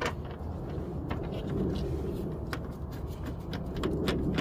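Irregular light clicks and taps of a socket tool and hands working at the headlight assembly's 10 mm mounting bolts and plastic housing, over a steady low rumble.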